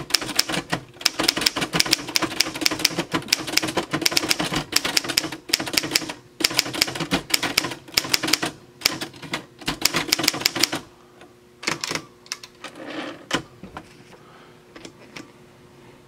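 1952 Remington Super-Riter standard desk typewriter being typed on: a rapid run of typebar strikes against the platen, thinning to fewer, scattered clicks about eleven seconds in.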